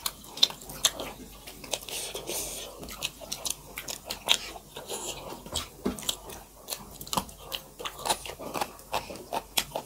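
Close-miked chewing and lip smacking of two people eating soft maize dhido and chicken curry with their hands: many sharp, wet mouth clicks in an uneven run.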